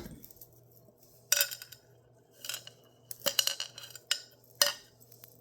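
Glass cutting board handled on a hard surface while its rubber stopper feet are pried off the back: five or so short knocks, clinks and scrapes, spaced irregularly, over a faint steady hum.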